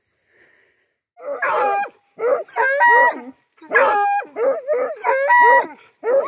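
Hunting dogs baying and barking excitedly at a hole in the ground where they have run a paca to earth. The run of loud calls starts about a second in, some short and some drawn out.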